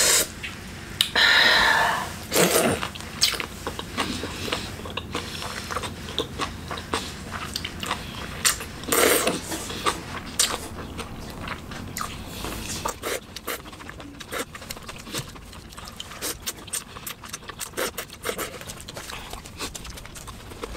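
Eating spicy noodle soup from a metal bowl: loud slurps of noodles in the first few seconds and again about nine seconds in, with chewing and chopsticks and a spoon clicking against the bowl.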